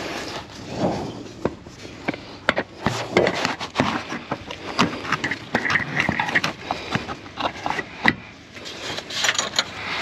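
Handling noise from a camera being moved about and wedged against a car's underbody: irregular clicks, knocks and scrapes, with rustling between them.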